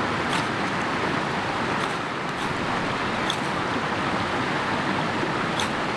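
Steady rush of a cascading mountain creek, with a handful of short, sharp scrapes of a ferro rod being struck at uneven intervals. The sparks are not catching the wild grape bark tinder.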